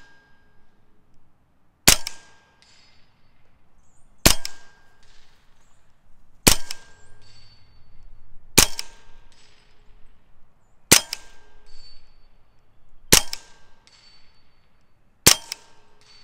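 HatsanUSA Blitz .30-calibre PCP air rifle firing seven single shots, about two seconds apart, in semi-auto. A moment after each shot comes the faint ring of the pellet striking a steel target plate downrange at 100 yards.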